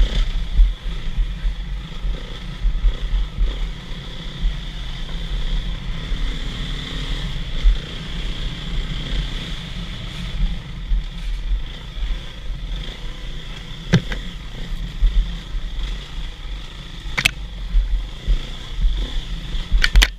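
Enduro motorcycle engine running under load while riding a dirt trail, picked up by an onboard camera, with heavy low rumbling buffeting on the microphone. A few sharp knocks cut through, the first about fourteen seconds in.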